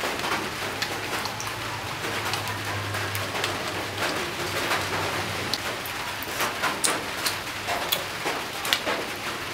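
A metal spoon clinking and scraping in a ceramic bowl as a dipping sauce is stirred, over a steady hiss, with a low steady hum in the first few seconds.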